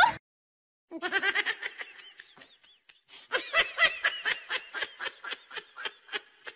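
A person laughing in a long run of short bursts, beginning about a second in after a brief silence and settling into a quick, even rhythm of about four bursts a second.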